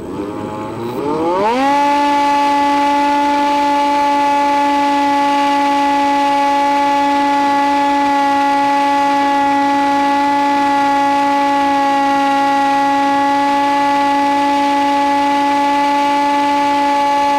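Electric motor and propeller of an RC foam plane, a Nitroplanes Easy Hawk, heard from the plane's onboard microphone. The pitch rises over about a second and a half as the throttle is opened, then holds a steady whine.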